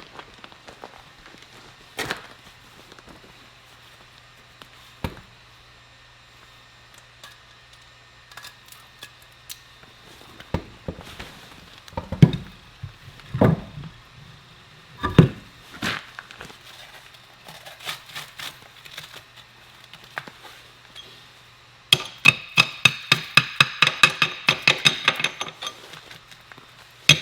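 Cordless impact wrench hammering on a wheel lug nut in a rapid series of sharp metallic blows for about four seconds near the end. Before that come scattered clinks and knocks of tools and metal parts, with a few heavier thuds about halfway through.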